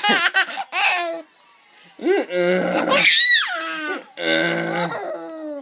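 A baby laughing hard in three bursts, the middle one a high squeal that rises and falls, in response to people coughing.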